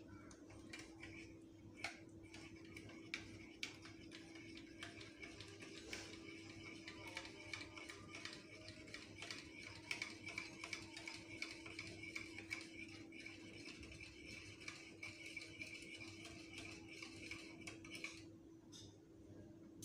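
A spoon stirring coffee in an enamel mug: fast, light clinking of metal against the mug's side that stops near the end, over a faint steady hum.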